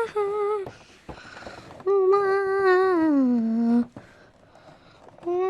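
A person humming a few wordless notes: two short held notes at the start, then a longer note about two seconds in that slides down in pitch near its end, and another short note at the very end.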